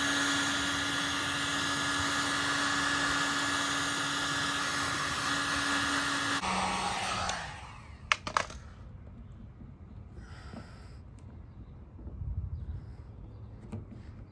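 Heat gun blowing steadily with a constant hum, switched off about six seconds in and running down over the next second. Two sharp clicks follow shortly after.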